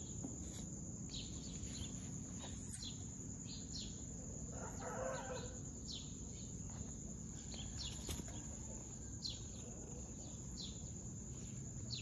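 Yard ambience: a chicken calls once, about five seconds in, over a steady high-pitched insect drone and short high chirps every second or so.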